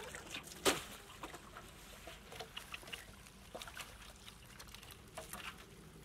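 Water dripping and pattering from a wet mesh net into an aluminium basin as small fish and shrimp are emptied into it, with scattered small splashes and clicks. One louder sharp impact comes about half a second in.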